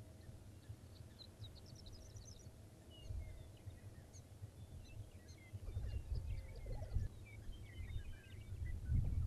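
Lesser prairie chickens calling on their lek: pitched gobbling calls come in about six seconds in and again near the end, over a steady low rumble. Small birds chirp in short high notes through the middle.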